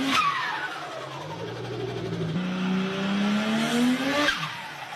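A performance car's engine accelerating hard through the gears: its pitch climbs, then drops sharply at a gear change a little over two seconds in and again near the end, with a short hiss at the shifts.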